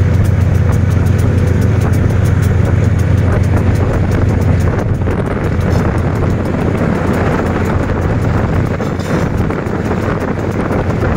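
Locomotive running, heard as a loud, steady low drone with a constant rattle over it.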